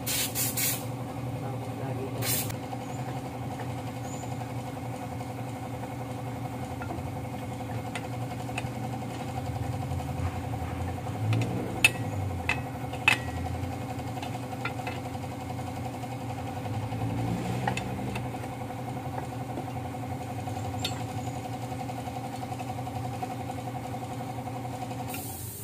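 An engine idling steadily with an even hum. There are two short hisses near the start, and a few sharp metal clinks about halfway through as the drum-brake shoes and springs are worked on.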